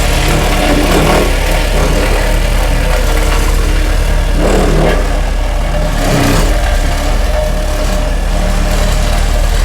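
Cat 226B skid steer's diesel engine running while its homemade hydraulic vibratory roller attachment, the front drum of a Case 252 roller, vibrates as it rolls: a steady deep hum under the engine.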